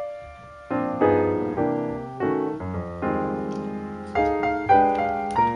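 Background piano music playing chords, with a brief lull just under a second in.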